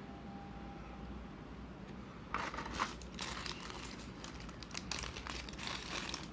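Plastic packaging crinkling as it is handled and opened, starting about two seconds in and going on in irregular crackly bursts.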